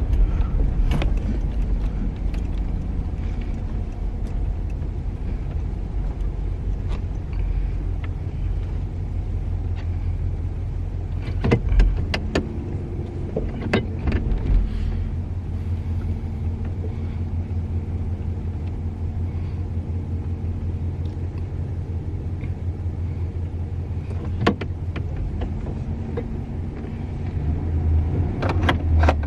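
1984 Pontiac Parisienne station wagon driving at low speed, its engine running with a steady low rumble, after a new ignition module got it running again. A few short clicks are heard along the way.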